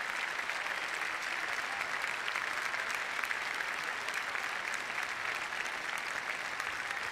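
A large stadium crowd applauding steadily, the dense clatter of many hands clapping.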